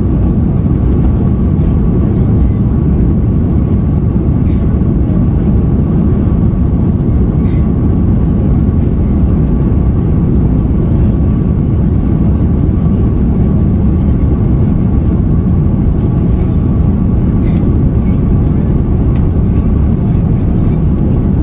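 Cabin noise inside an Airbus A330-200 taxiing: the steady low rumble of its Rolls-Royce Trent 700 engines at taxi power, with a thin steady whine above it and a few faint ticks.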